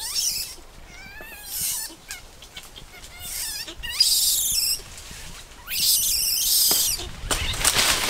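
Birds chirping and calling in the tree canopy, mixed with repeated bursts of rustling leaves and shaking branches as the tree is climbed.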